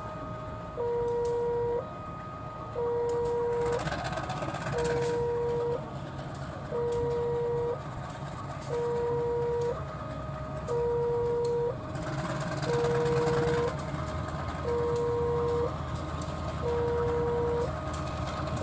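An electronic warning alarm sounds a steady tone about a second on and a second off, with a softer tone in each gap. Under it runs the low rumble of a CC 203 diesel-electric locomotive pulling its train slowly away, swelling near the end.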